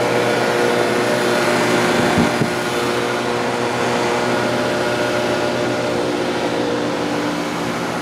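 Two Payne PH15 1.5-ton heat pump outdoor units running in heat mode: a steady hum with several even tones under the rush of the fan.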